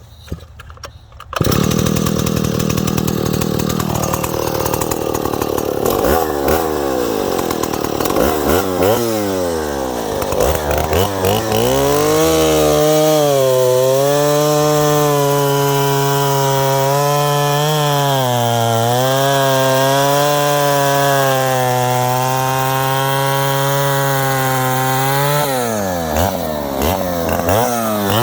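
Stihl 090AV two-stroke chainsaw starting about a second in, being test-run after a full service and tune. It is revved up and down several times, then held at high revs for most of the rest, with brief dips near the end.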